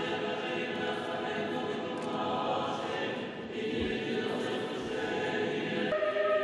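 Russian Orthodox church choir singing an unaccompanied liturgical chant in long held notes, moving to a new held note near the end.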